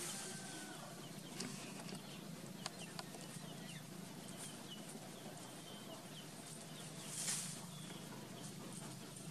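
Faint outdoor background: short high chirps now and then over a steady low hum, with a few light clicks and a brief rustling hiss about seven seconds in.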